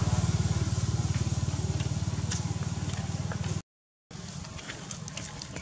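A small engine running with a low, rapid, steady throb, easing slightly, then cut off abruptly about three and a half seconds in by a brief dropout. After that come faint scattered clicks and crackles.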